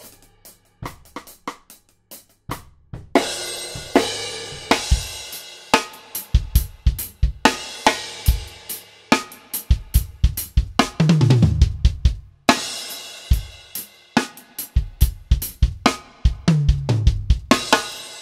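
A five-piece drum kit playing a beat with snare, kick, hi-hat and cymbals, heard first through the Avantone CK-1 overhead pair alone and then through all the close mics and overheads together, processed. Twice the drummer plays a fill that falls in pitch down the toms.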